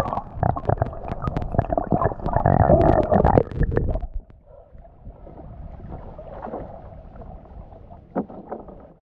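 Muffled underwater sound from a submerged camera: a dull rumble with many sharp clicks and knocks while a hand gathers shells in seagrass. About four seconds in the camera comes out of the water, and the sound turns to a quieter, even wash of sea water and air around a wading forager, with a few clicks.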